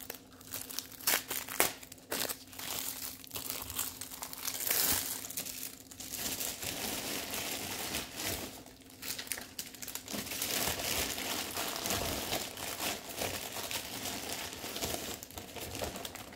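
Plastic wrapping of a rolled diamond painting kit being crinkled and pulled open by hand: continuous crackling, with a few sharper snaps in the first couple of seconds.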